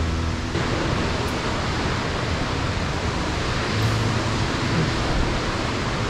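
Steady rushing roar of Sanjō-no-taki waterfall, an even, unbroken noise.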